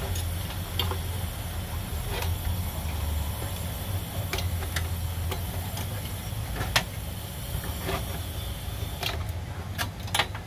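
Scattered sharp clicks and small knocks of wire connectors being unplugged from an amplifier's circuit board, over a steady low hum.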